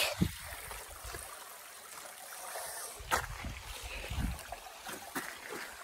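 Creek water flowing with a steady trickle, under rumbling handling noise from the phone being carried, and one sharp knock about three seconds in.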